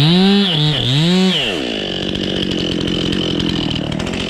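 Stihl top-handle chainsaw running at high revs. In the first second and a half the engine speed rises, dips and rises again, then settles to a steady high speed.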